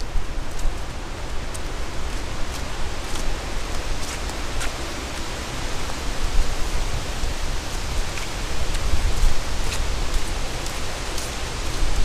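Wind buffeting a GoPro's microphone: a steady rushing hiss with an uneven, gusting low rumble, and a few faint clicks scattered through it.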